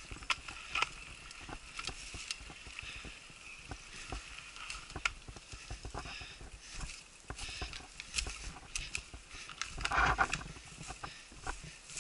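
Mountain bike ridden over a dirt forest trail: tyres on dirt and dry leaves, with frequent irregular clicks and rattles from the bike over rough ground, and a louder noisy burst about ten seconds in.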